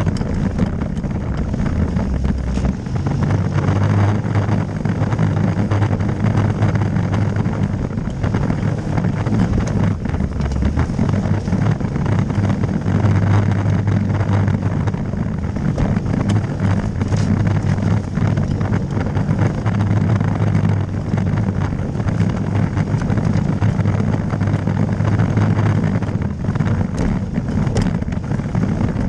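Dong Fang 200cc ATV engine running as the quad is ridden, its note swelling and easing again and again as the throttle is worked.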